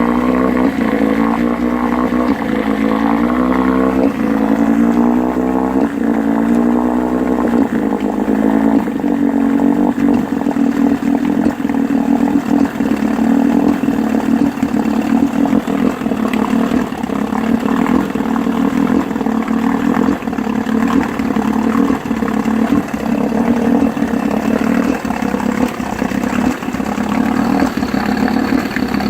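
1969 Johnson 9.5 hp two-stroke outboard motor running, its speed wavering up and down for the first several seconds, then running steady with irregular coughing misfires. The coughing is a sign of a lean mixture: a pin hole in a small tube under the carburetor was letting the motor suck in air.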